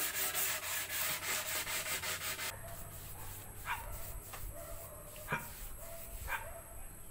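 A broom sweeping a hard floor in quick, even strokes, about five a second, for the first two and a half seconds. After that a dog gives three short, high yelps spread over the next few seconds.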